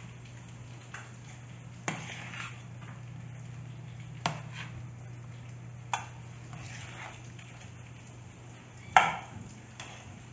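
Metal spoon clinking against a stainless steel bowl while potato salad is stirred and folded with mayonnaise: a few sharp clinks a couple of seconds apart, the loudest near the end, with soft mixing in between. A steady low hum runs underneath.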